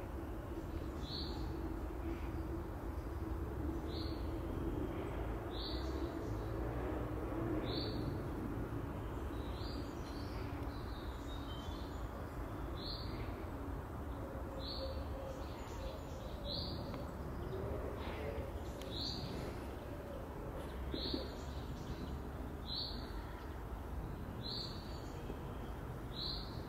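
A bird repeating a short, high chirp about every two seconds, over steady low outdoor background noise.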